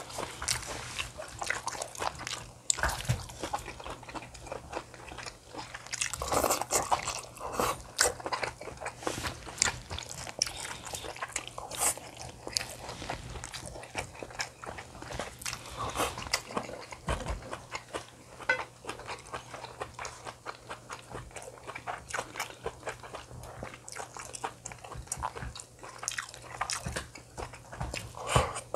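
Close-miked chewing, biting and crunching of food, with many short sharp clicks and crackles.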